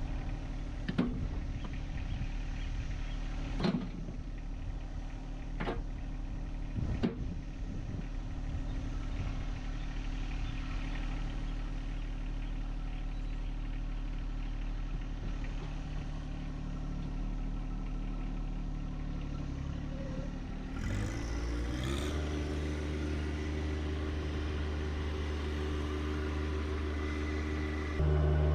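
John Deere 1025R compact tractor's three-cylinder diesel running steadily, with a few sharp knocks in the first seven seconds. About two-thirds of the way through the engine speeds up with a rise in pitch, and it gets louder again near the end.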